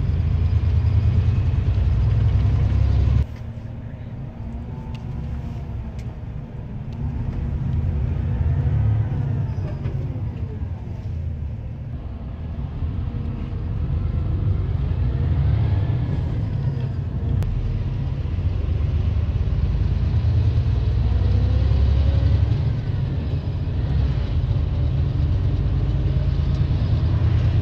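Highway bus running, heard from inside the cabin: a steady low engine and road rumble with engine and transmission pitch rising and falling as it changes gear on a climbing road. The sound drops suddenly about three seconds in.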